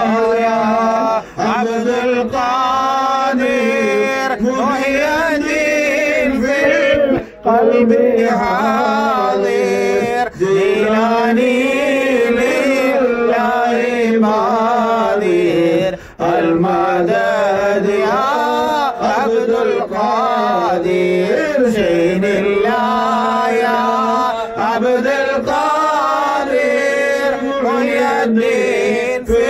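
A man singing a devotional chant solo, in long held notes that bend and waver.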